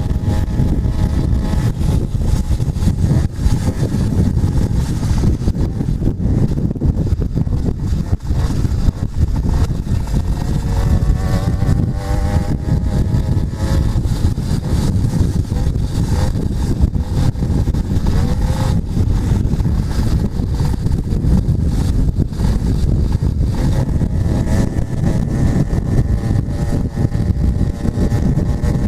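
80cc two-stroke motorized bicycle engine running while riding, its pitch rising and falling as the throttle changes, over a heavy low rumble of wind and road noise.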